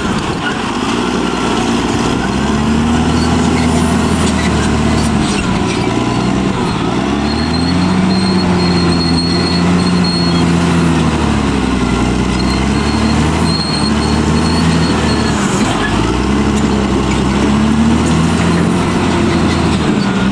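Caterpillar D6R bulldozer's diesel engine working under load, its pitch rising and falling every few seconds as it digs and pushes. A thin high squeal comes and goes over it.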